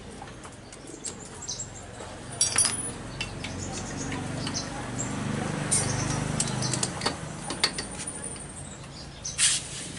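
Scattered small metallic clicks and taps from hand work on a Vespa engine's contact-breaker points, with birds chirping in the background and a low hum in the middle.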